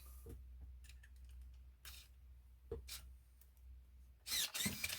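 A few faint clicks as the radio gear is switched on over a low hum, then about four seconds in a louder electric whirring that rises and falls in pitch, typical of a steering servo moving.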